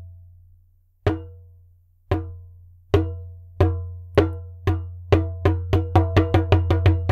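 Music jingle of wood-block-like knocks, each with a short pitched ring, starting about a second apart and speeding up to several a second near the end, over a steady low drone.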